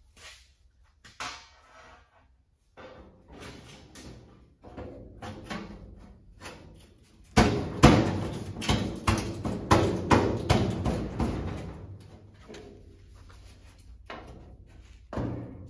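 A loose sheet-metal replacement cowl side panel handled and pressed against a 1928 Model A's steel cowl: scattered clanks and metallic rattling. The clatter is loudest about halfway through as the panel is pushed into place, then dies down, with one more knock near the end.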